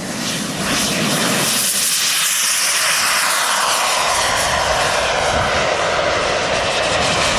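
Radio-controlled Concorde scale model's jet turbines at takeoff power during the takeoff run and steep climb-out: a loud, steady jet whine and rush. It swells about half a second in, and the whine slowly falls in pitch as the model passes and climbs away.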